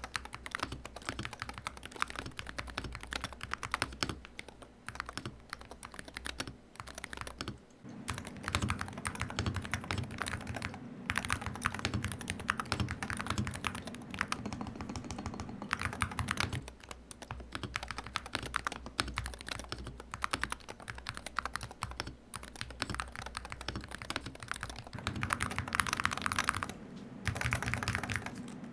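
Typing on an Akko MOD007B HE PC Santorini Hall Effect keyboard with magnetic switches, its stabilizers freshly lubed: fast clattering keystrokes in runs, with brief pauses between them.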